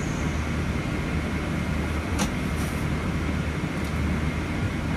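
Steady cabin noise of a Boeing 777-300ER on the ground: a low hum with an air-conditioning hiss over it, and a single click a little over two seconds in.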